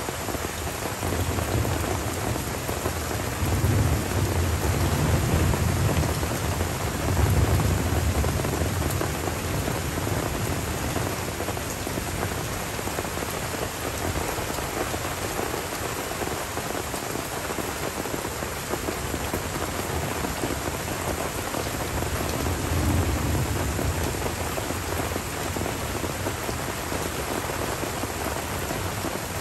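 Tropical summer thunderstorm: steady rain falling on forest, with thunder rolling twice, a long rumble over the first several seconds and a shorter one about three-quarters of the way through.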